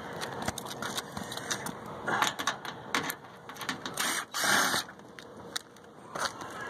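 Work on the sheet-metal electrical access panel of an old package air-conditioning unit: a run of clicks and taps, with a longer scrape a little past the middle.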